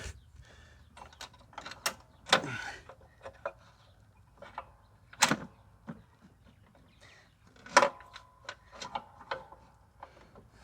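Irregular metal clicks and knocks of hands working at the belt and parts under a Toro TimeMaster mower, the loudest knocks about two, five and eight seconds in.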